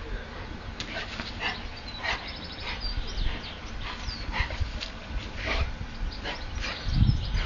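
A Labrador and a greyhound play-fighting: short, scattered dog sounds come every half second to a second, with a louder thump near the end.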